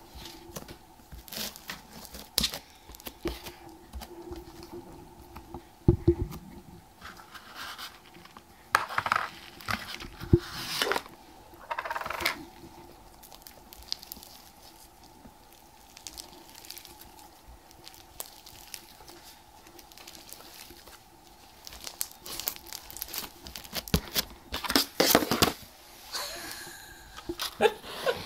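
Thick textured slime being squeezed, stretched and torn apart by hand, giving irregular crackles, pops and tearing sounds, with busier stretches around a third of the way in and again near the end.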